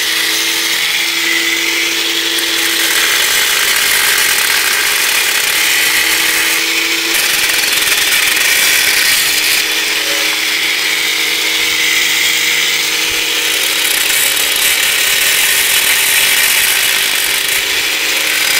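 Angle grinder running steadily, its disc cutting through the bottom of a ribbed glass grave-candle jar: a steady motor whine under a loud, hissing grind.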